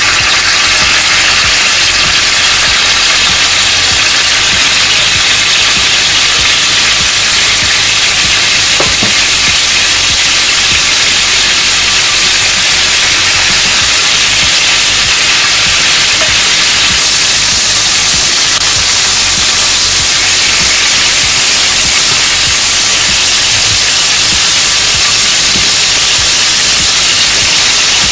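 Chicken breast strips frying in oil in a pan, with a steady sizzle and a few faint crackles.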